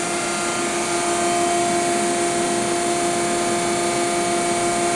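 Mazak VCN 410A-II vertical machining center powered up and standing idle, giving a steady machine hum with a constant pitched drone.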